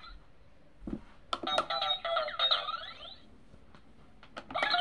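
Children's electronic learning laptop toy playing a short synthesized jingle of bright beeping notes, starting about a second in and lasting about two seconds. A few sharp clicks follow, and another jingle starts at the very end.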